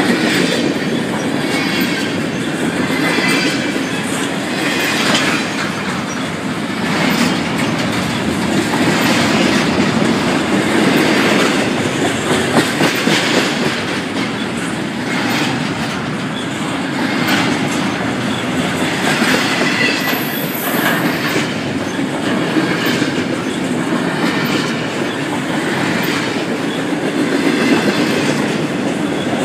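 Long CSX intermodal freight train of double-stacked container well cars passing close by: a steady, loud rumble with the clickety-clack of wheels over rail joints.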